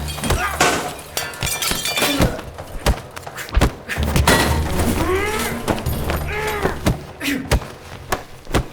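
Designed film sound effects: a rapid string of hard hits, thuds and breaking glass, over a low steady music drone, with a few short voice grunts in the middle.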